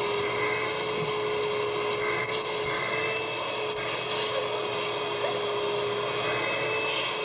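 A steady motor drone holding one even pitch throughout.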